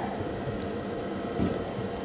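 Steady running hum of a furnace's equipment, with two light clicks, one about half a second in and one near a second and a half.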